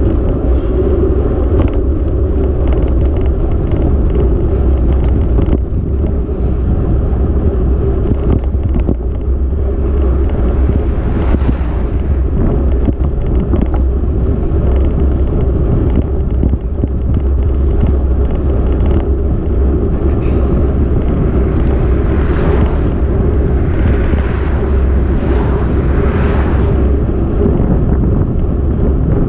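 Loud, steady wind buffeting on the microphone of a camera moving along a road, a heavy low rumble with no letup. A few fainter swells of higher hiss come and go in the second half.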